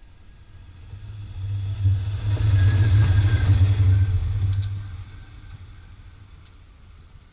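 Diesel locomotive passing close by on the track: its low engine rumble swells, peaks for a few seconds as it goes past, then fades as it pulls away. A couple of sharp wheel clicks over the rails are heard about four and a half seconds in.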